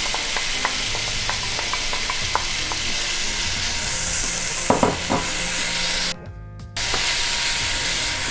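Sliced red peppers and onions sizzling in hot olive oil with garlic in a stainless steel sauté pan, stirred with a wooden spatula that clicks against the pan now and then. The sizzle drops away for about half a second a little after six seconds.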